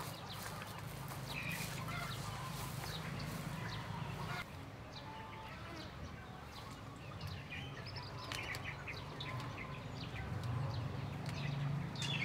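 Chickens clucking and small birds chirping, with scattered short calls over a low steady hum.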